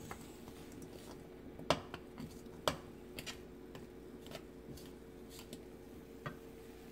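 A wooden spoon knocking and scraping against a nonstick wok while frozen stir-fry vegetables are stirred: a scatter of short, irregular clicks, the loudest about two seconds in and again a second later, over a faint steady hum.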